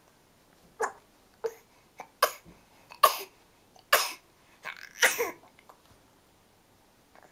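A baby squealing with delight in about six short squeals, one after another, the loudest near the middle.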